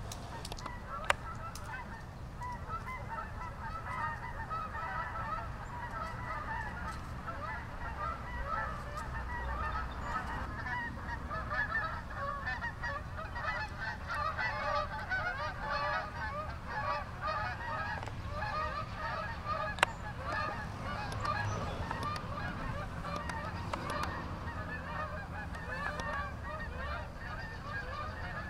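A large flock of geese honking, many overlapping calls at once without a pause. Two sharp clicks cut through, one about a second in and one about two-thirds of the way through.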